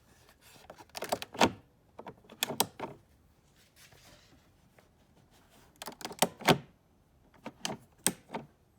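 Harley-Davidson Road Glide inner fairing vents being worked open and shut by hand, the plastic vent switches clicking in four quick groups of two or three clicks each. The clicks are the sign of the repaired vent mechanism working again.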